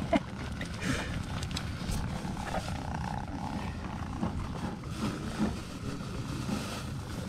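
Tuxedo kitten purring loudly and steadily, a close, low rumble.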